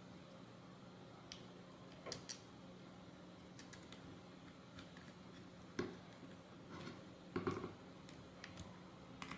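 Faint, scattered small clicks and taps of small bolts, nuts and spacers being fitted by hand to a robot-car chassis plate, with a couple of slightly louder knocks about six and seven and a half seconds in.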